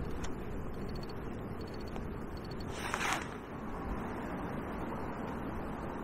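Steady low outdoor rumble of riverbank background noise, with a brief rustle about three seconds in.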